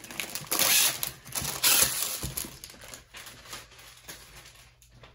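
Clear plastic wrap crinkling as it is pulled off a rolled diamond painting canvas. The crackling is loudest in the first two seconds, then dies down to a few faint rustles.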